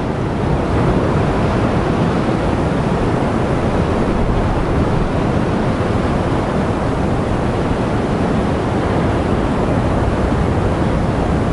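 Ocean surf breaking on the rocks, a steady wash of noise, mixed with wind buffeting the microphone.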